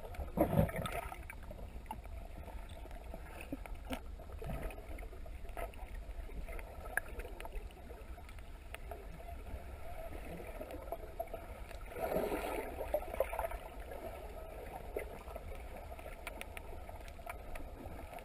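Muffled underwater sound of water moving around a submerged camera, with two louder swells, one about half a second in and one about twelve seconds in, and scattered faint clicks.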